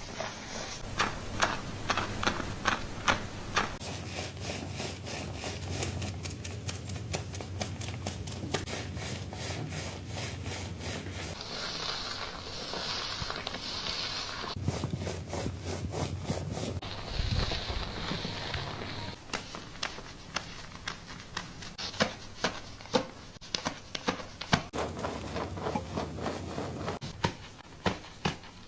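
Fingers scratching and rubbing a person's scalp through the hair during a scalp-care wash: a long run of quick, crackly scrapes, with a couple of brief hissing spells around the middle.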